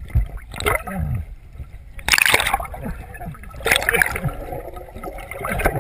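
Water sloshing and gurgling around a submerged camera, in irregular surges as the water moves over and around it.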